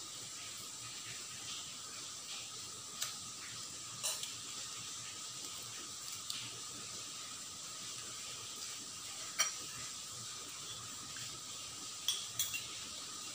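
Metal cutlery clinking against ceramic and glass bowls during a meal: a few short, separate clinks, two in quick succession near the end, over a steady background hiss.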